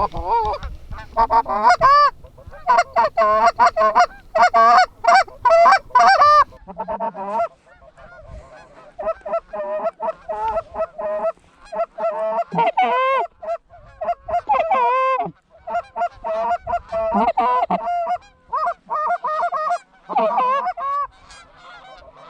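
Goose honks and clucks, many short calls in rapid, overlapping runs. The calling is loudest and busiest in the first six seconds, then goes on more sparsely.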